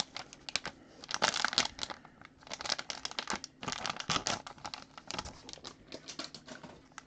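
Plastic packaging around a trading card crinkling and rustling in irregular bursts of crackles as it is handled and opened.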